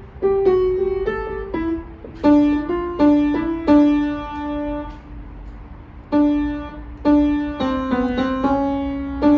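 Piano being played: a slow melody of single notes, several of them held for about a second.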